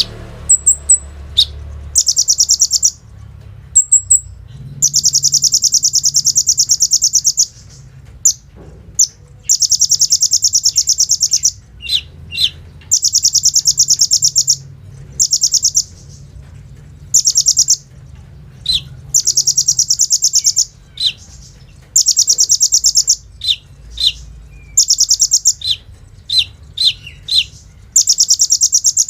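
Sunbird (kolibri ninja) singing loudly: long, very fast machine-gun-like trills of high notes lasting one to three seconds, broken up by short sharp high chips.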